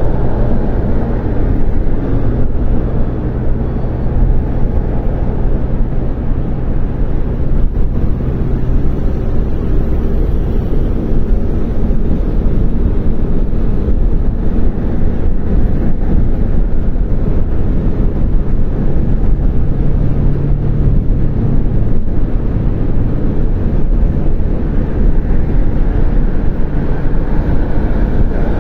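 Car driving steadily at highway speed, heard from inside the cabin: a steady low rumble of engine and tyre noise with a faint hum.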